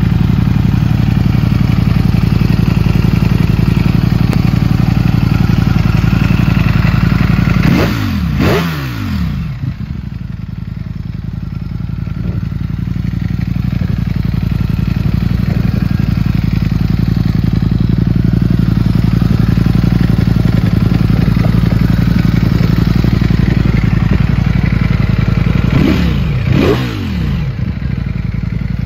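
Ducati Panigale V4 S's 1103 cc V4 engine idling steadily. It is blipped twice, about eight seconds in and again near the end, its pitch sweeping up and falling back to idle each time.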